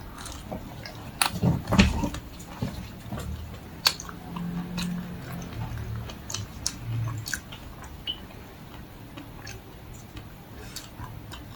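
Biting and chewing a crunchy chocolate-coated Magnum ice cream bar, with sharp cracks of the chocolate shell scattered through the chewing.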